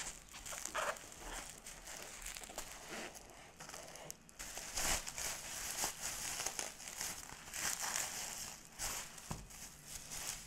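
Plastic bubble mailer and bubble wrap crinkling and rustling as they are handled and opened and an album is slid out, with many irregular sharp crackles.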